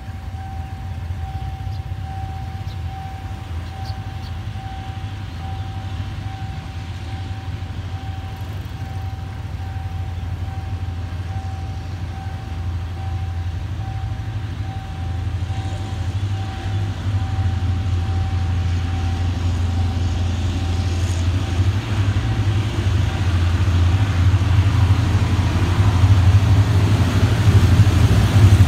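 Hitachi diesel-electric locomotive 4514 approaching with its train: a low engine drone growing steadily louder, loudest near the end. Over it, a pulsing warning tone from the level crossing sounds until about three quarters of the way through, then stops.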